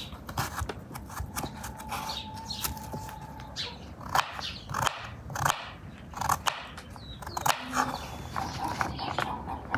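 Kitchen knife chopping carrots on a wooden cutting board: short knocks at an uneven pace as the blade goes through the carrot and hits the board.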